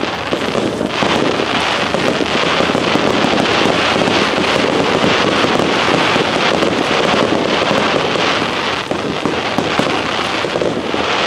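Aerial fireworks bursting in a dense, continuous barrage of rapid pops and crackles, easing slightly near the end.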